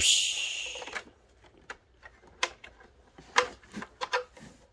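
A short hissing burst that fades over about a second, then scattered small clicks and taps of die-cast toy cars being moved across a plastic Hot Wheels playset.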